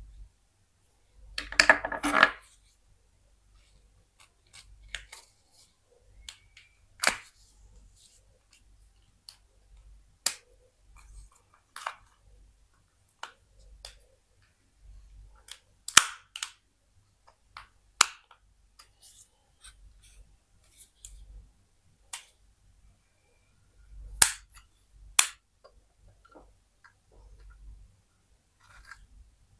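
Sharp clicks and snaps from an old ZTE mobile phone being taken apart by hand: small plastic and metal parts prying loose, tapping and being set down. A short scraping burst comes about two seconds in.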